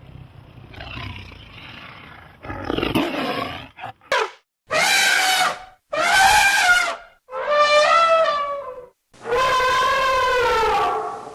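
An animal calling: a few rough, noisy calls, then four long, clearly pitched calls, each about a second and a half, sliding down in pitch at the end.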